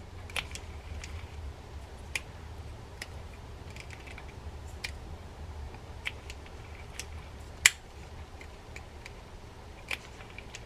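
Abu Ambassadeur 5600SX baitcasting reel's free spool release being tripped and re-engaged over and over, giving about a dozen sharp clicks at irregular intervals, the loudest about three-quarters of the way through. The release now clicks through cleanly without its earlier hang-up noise, a sign the fault is fixed.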